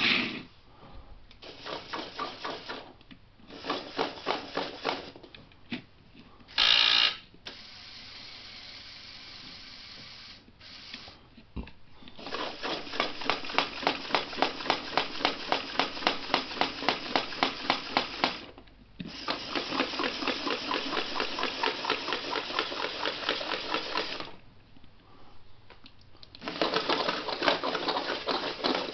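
Remote-controlled LEGO Technic walking robot's electric motors and plastic gears running with a fast mechanical rattle as its legs step, pulsing about three times a second. The rattle comes in runs of a few seconds with short pauses between.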